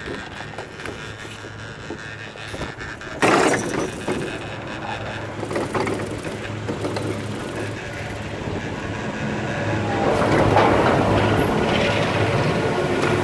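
Doppelmayr detachable high-speed quad chairlift running, with a steady low mechanical hum. About three seconds in, a sudden loud rumble as the chair passes a lift tower. From about ten seconds the top terminal's machinery grows louder, with steady tones, as the chair rides into the terminal.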